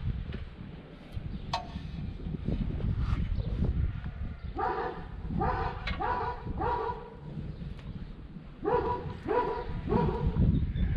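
A dog barking in two runs of about four short barks each, with a steady low rumble underneath.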